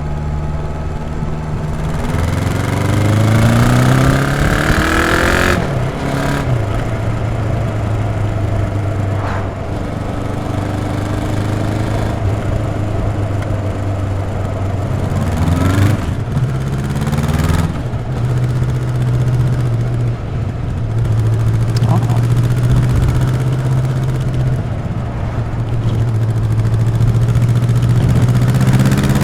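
Honda CB 1100 RS's air-oil-cooled 1140 cc inline-four running through its stock exhaust while riding: it revs up over the first few seconds, drops sharply at a gear change about five and a half seconds in, then holds a steady cruise, with more revving and quick shifts around sixteen and seventeen seconds and another rise near the end.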